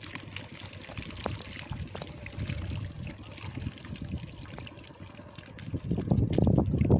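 Shallow water splashing and trickling around a bamboo fish trap packed with fish, with louder splashing starting about six seconds in.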